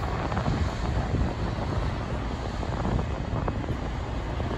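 Steady low rumble of a tugboat's diesel engines pushing a barge past, mixed with wind buffeting the microphone.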